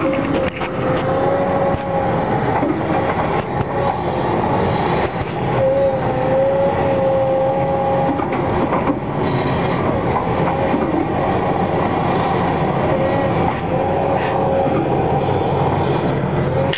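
Caterpillar 329E hydraulic excavator running close by as it swings and digs, its diesel engine working under load with a high steady whine that wavers and fades in and out over it.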